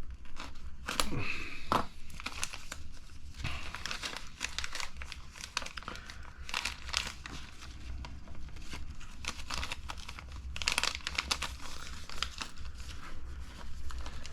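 Small plastic zip parts bags crinkling and rustling as they are handled and sorted, in an irregular run of short rustles and light clicks.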